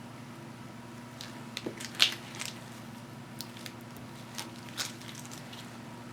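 Scattered small clicks and crinkling from hands working with small objects close to the microphone, loudest just after two seconds, over a steady low hum.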